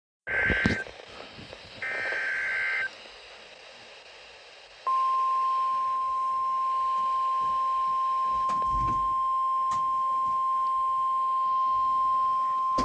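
NOAA Weather Radio EAS alert opening: two short, harsh, warbling data bursts of the SAME header, the second about two seconds in, encoding a severe thunderstorm warning. About five seconds in comes the warning alarm, one loud, steady, high single tone that holds.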